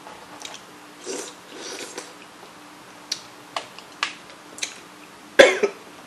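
Close-up eating sounds: hands working cooked crab legs, with sharp clicks of shell and nails scattered through, and one short, louder mouth sound about five seconds in.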